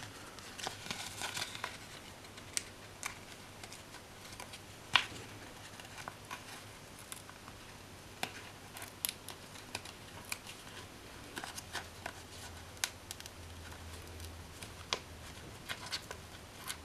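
Paper sticker sheet being rolled and flexed between the fingers while picking at a sticker that won't lift: soft crinkling with scattered sharp clicks and ticks, one louder click about five seconds in.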